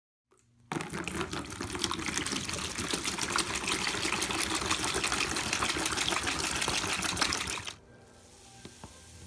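A stream of water pouring into a white plastic bowl, starting abruptly about a second in and running loud and steady as the bowl fills, then stopping near the end. After it, faint sloshing as hands move in the water.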